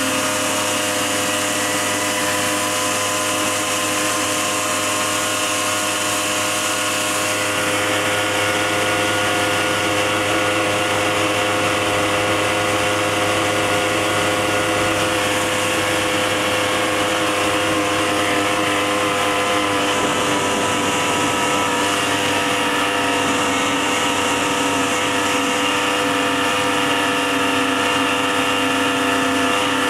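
Snowmobile engine running at a steady, even pitch.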